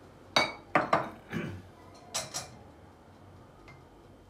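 About six sharp clinks and knocks of kitchen utensils and containers being handled on a countertop, some with a short ring, in the first two and a half seconds.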